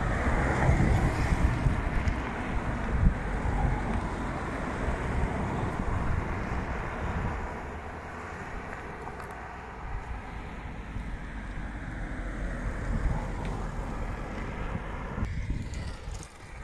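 A car drives past on the road, its tyre and engine noise loudest at first and fading over several seconds, with wind rumbling on the microphone throughout.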